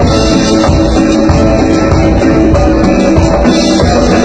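Cumbia band playing, with timbales and hand percussion keeping a steady beat.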